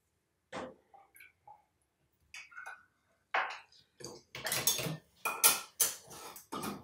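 Metal ladle and spoon clinking and scraping against pots and glass canning jars while hot sauce is ladled into the jars. Scattered light clinks at first, then a run of louder, closer-spaced clatter from about four seconds in.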